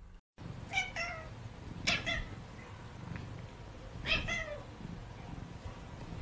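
A domestic cat giving three short meows, about a second, two seconds and four seconds in.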